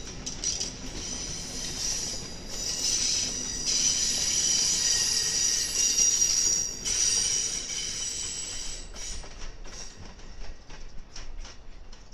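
Wheels of Amtrak passenger cars squealing as the train rolls around a curve: a high, steady squeal that swells to its loudest midway, then gives way to scattered clicks of wheels over the rail joints near the end, over a low rumble.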